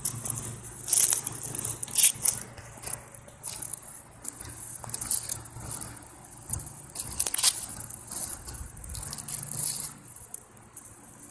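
Footsteps crunching on dry grass and fallen leaves, an irregular crackling of steps, over a faint steady low hum.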